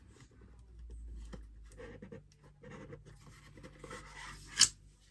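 Light scratching and rustling of packaging and small kit pieces being handled during unpacking, with one sharp click near the end.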